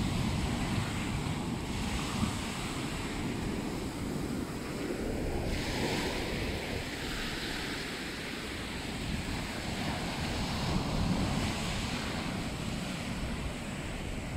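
Small waves breaking and washing up a sandy beach, a steady surf hiss that swells about six seconds in as a wave runs up the sand. Wind rumbles on the microphone underneath.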